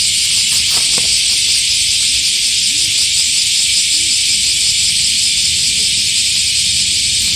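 Dense chorus of cicadas, a loud, steady, high-pitched hiss.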